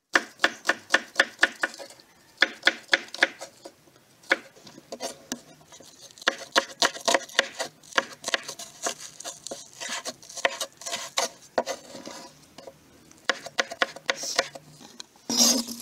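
Kitchen knife chopping onion on a wooden board: quick runs of sharp knocks, several a second, with short pauses between runs.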